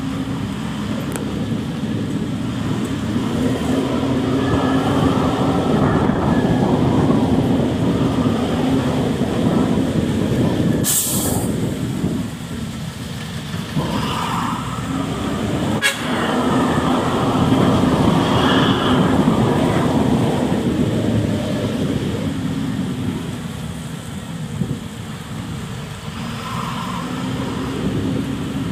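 Ordinary bus running on the road, heard from inside the cabin: steady engine and road noise that swells and eases twice as the bus speeds up and slows. A brief sharp hiss about eleven seconds in.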